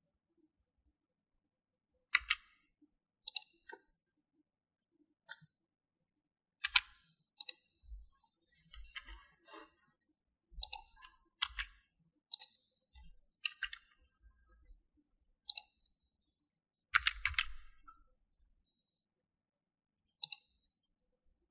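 Computer keyboard keys and mouse buttons clicking as Blender shortcuts are used. The clicks come singly and irregularly, a second or two apart, with short quick runs of clicks about midway and again about three-quarters through.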